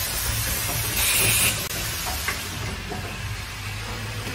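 Automatic plastic water tap assembly machine running, with a steady low hum. A bright hiss swells about a second in and cuts off sharply at about a second and a half, and a light click follows a little later.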